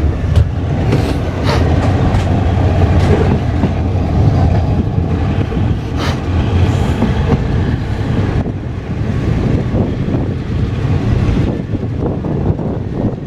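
Thai express passenger train's carriages rumbling past close by, with sharp wheel clacks over the rail joints in the first few seconds, the run easing off near the end.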